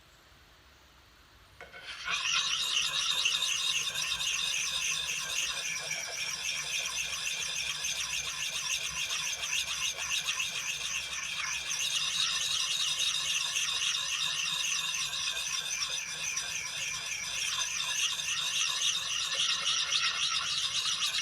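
Coarse sharpening puck rubbed in small circles over the steel cheek of a swamping-pattern axe head: a steady, gritty rasp of stone on steel that starts about two seconds in.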